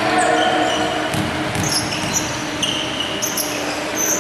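Basketball game on a wooden gym floor: sneakers squeaking in short high chirps and the ball thudding on the floor a few times about a second in, over the steady hum of the hall.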